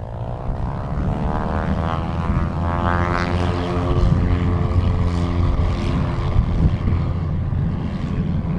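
Gulfstream G600 business jet on final approach with gear down, its twin Pratt & Whitney PW815GA turbofans running with a steady rumble and a whine that sweeps up over the first few seconds, then holds steady.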